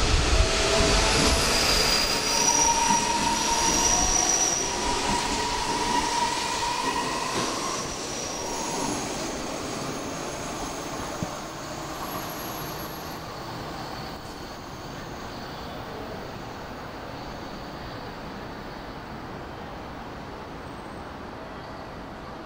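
Hanshin Railway electric train pulling away or running past, its wheels squealing in thin high tones for the first few seconds. The train noise then fades steadily away.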